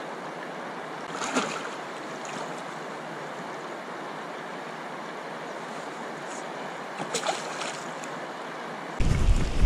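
Steady rushing of a shallow river, with short splashes about a second in and again around seven seconds as a steelhead is released by hand in the water. Near the end, wind rumbles on the microphone.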